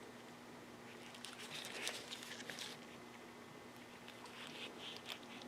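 Faint light scratching and small clicks of a thin piece of wire being worked into a plugged carburettor pilot jet, over a faint steady hum.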